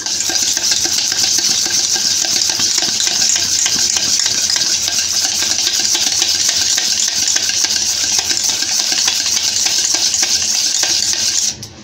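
Wire balloon whisk beating softened butter by hand in a stainless steel bowl: a fast, steady scraping and clinking of the wires against the metal as the butter is creamed pale. It stops just before the end.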